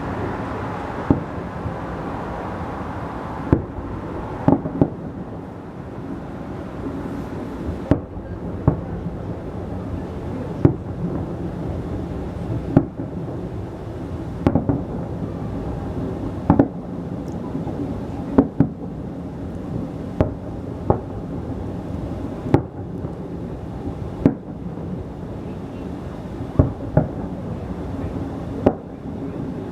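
Fireworks salute: shells bursting in a series of sharp bangs, about twenty of them one to two seconds apart, over steady background noise.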